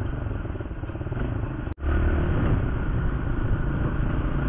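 Motorcycle riding in traffic: engine running with road and wind noise. There is an abrupt dropout nearly two seconds in, after which the low rumble is louder.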